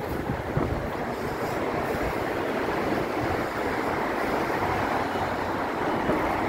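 Steady traffic noise on a city street, an even rush of passing vehicles with a low rumble underneath.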